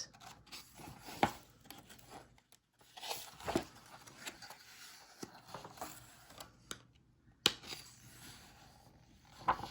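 Paper pages of a picture book being handled and turned, with soft rustling and rubbing, scattered light taps, and one sharp click about seven and a half seconds in.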